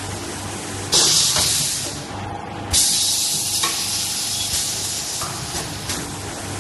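Small automatic paper plate forming machine running with a steady hum, and two loud bursts of air hiss about a second long each, about a second in and again near the middle, as its pneumatic press cylinders vent air while cycling.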